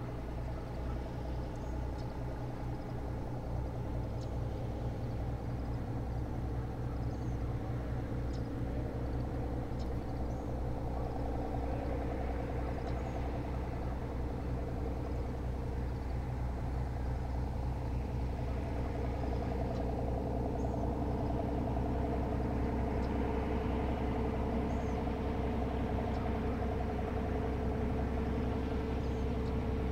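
A steady engine drone with a deep hum and overtones, slowly growing louder.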